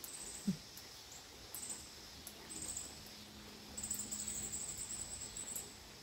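Insects chirping in short, high-pitched pulsing trills, the longest about four seconds in, over a faint steady hiss. A brief soft low thud about half a second in.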